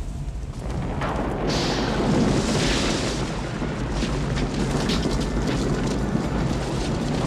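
Film sound effects: a trail of fire flaring up along the ground with a whoosh about a second in, then a steady deep rumble with crackling as the earth splits open and glows red.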